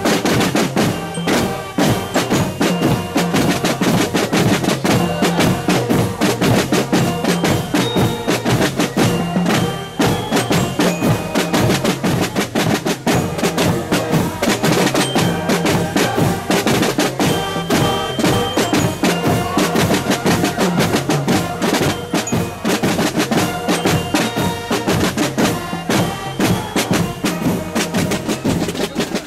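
Hunting-horn marching corps playing a march: hunting horns sound a melody over a dense, steady beat of snare and bass drums.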